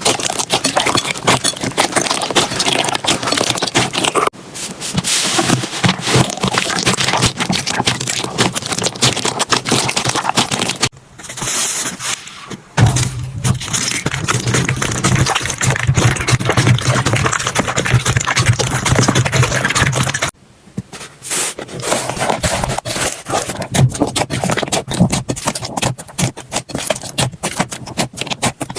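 Slime being pressed and stretched by hand, making a dense run of crackling pops and clicks. The sound changes abruptly several times, about four, eleven and twenty seconds in, and a low steady hum runs under it for a few seconds past the middle.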